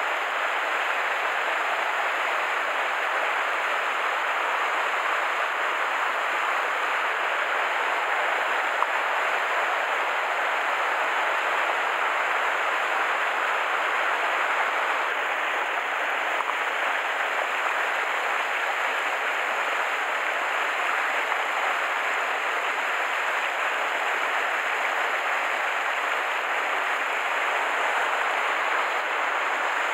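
Steady rush of flowing mountain-stream water, even and unbroken.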